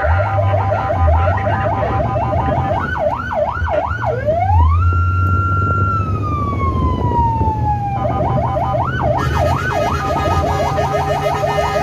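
Emergency vehicle's electronic siren sounding while the vehicle drives, heard from inside its cab. It runs fast up-and-down sweeps, switches about four seconds in to a rise, a held high tone and a slow fall, then goes back to fast sweeps near the end, over the steady low hum of the engine.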